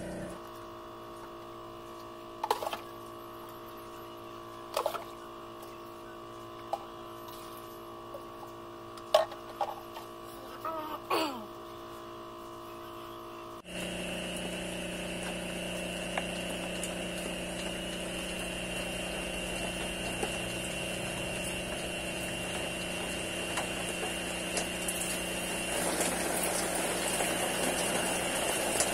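Aquarium air pumps humming steadily, with a few sharp knocks and one short falling squeak in the first half. After an abrupt change, a noisier hum with a high whine runs on, and water poured from a plastic jug into an aquarium tank makes the sound louder near the end.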